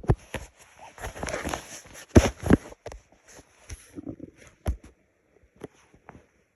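Handling noise on the microphone: rustling and a run of sharp knocks and clicks, busiest in the first three seconds, with two loud knocks in the middle, then thinning to a few scattered clicks.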